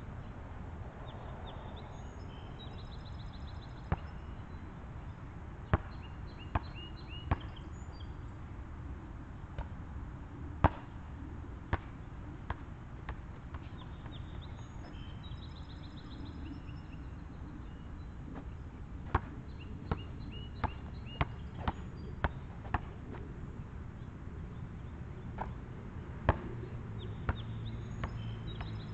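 A basketball bouncing on an asphalt court: sharp single bounces now and then, and about two-thirds of the way through a run of about seven quick dribbles about half a second apart.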